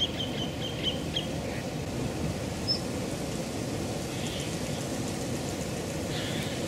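Steady low rumble of wind on the microphone by open water, with a few faint, high bird chirps through the first second and a half and once more a little later.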